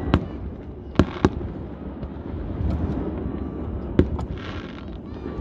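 Aerial fireworks bursting: a sharp bang near the start, two close together about a second in, and another about four seconds in, over a steady low rumble.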